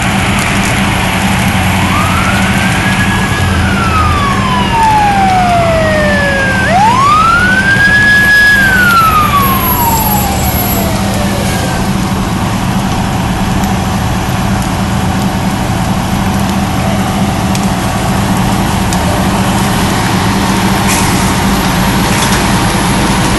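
Fire engine siren wailing in slow sweeps, each rising, holding briefly and falling, the second louder; it dies away about halfway through. Under it runs a steady low engine drone.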